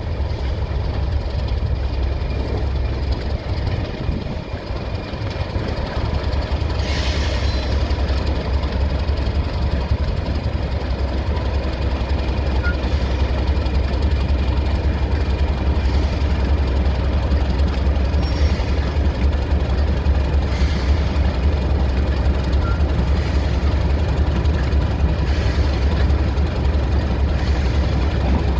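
Class 31 diesel-electric locomotive running slowly past, its English Electric 12-cylinder engine giving a steady, heavy low rumble that swells a little as it draws alongside. A few brief hisses sound over it.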